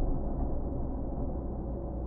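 Steady low rumble of a car on the move: engine and tyre noise while driving.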